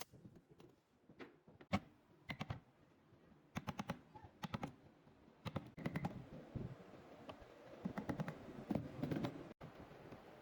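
Irregular light clicks and knocks of hand work on wood, many in quick runs of three or four, with duller low knocks between them.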